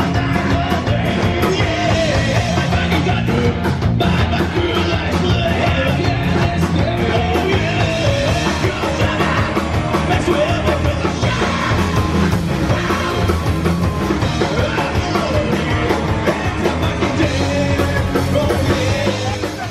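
Punk rock band playing live: distorted electric guitars and a drum kit driving a fast beat, with a man singing into the microphone. The music breaks off abruptly near the end.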